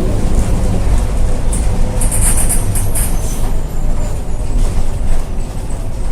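Mercedes-Benz bus running at high speed with a steady low drone from its wheels, typical of a wheel-bearing problem that is harmless to the bus. A brief high hiss comes about two seconds in.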